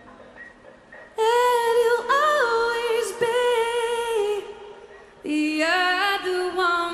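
A woman's voice singing long, held, wordless notes of a slow song, with little or no accompaniment: the first second is quiet, then come two sustained phrases.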